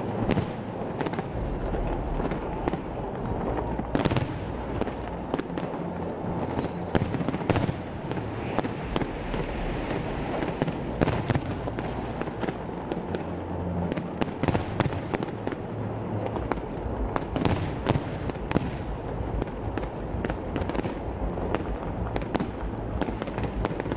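Fireworks display: aerial shells bursting in a dense, continuous run of bangs and crackling. Two short high whistles come about a second in and again about six seconds in.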